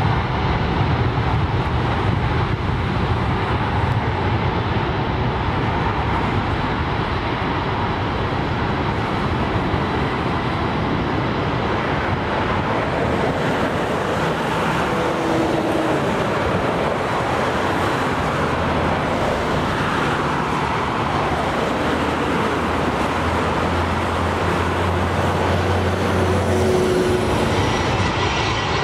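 Boeing 747's four jet engines giving a steady rumble during its takeoff roll.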